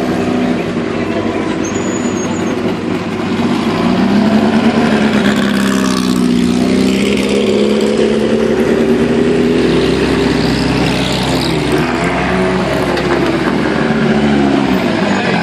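Racing car engines running at low revs as the cars roll slowly past, the engine note rising about four seconds in and then swelling up and down.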